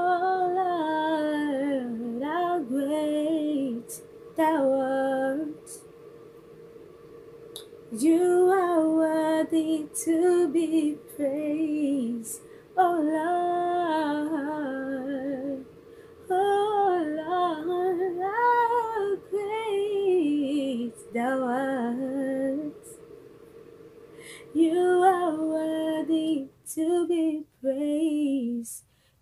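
A woman singing a worship song solo, in long phrases broken by short pauses.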